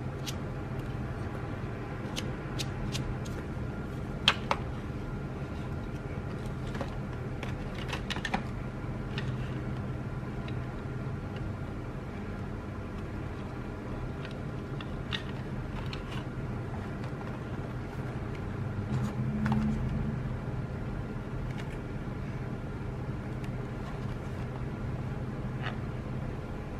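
Art supplies being handled: scattered clicks and taps as a metal pencil tin, a plastic pencil pack and cardboard paint boxes are picked up and set down, the sharpest about four seconds in. A steady low hum sits underneath.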